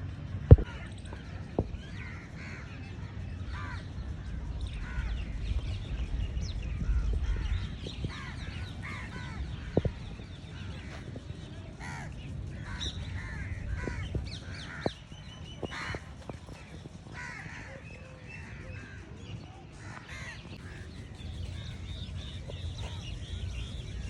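Many birds calling and chirping over a steady low rumble, with a few sharp clicks, the loudest about half a second in.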